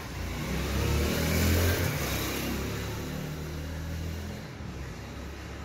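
A motor vehicle's engine rumbling, swelling to its loudest about a second and a half in and then fading.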